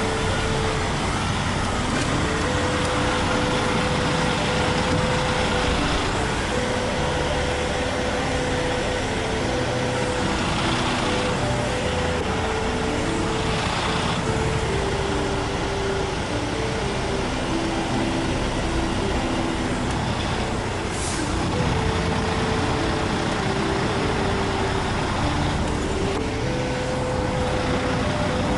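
Semi truck's diesel engine running steadily, heard inside the cab as the truck moves slowly, with a faint tune of held notes underneath and a short hiss about two-thirds of the way through.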